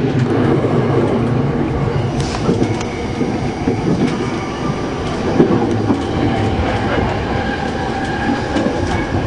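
JR East 209 series electric multiple unit running at speed, heard from the cab: a steady rumble of the wheels on the rails, with a few sharp clacks as the wheels pass over rail joints and pointwork.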